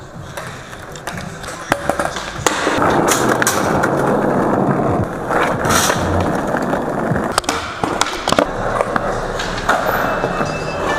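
Skateboard wheels rolling on concrete, a steady rushing noise that gets louder about two and a half seconds in, with a few sharp clacks of the board striking the ground.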